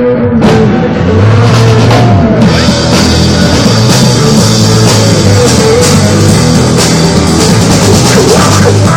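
Loud rock music with a drum kit and guitar, the full band coming in about half a second in.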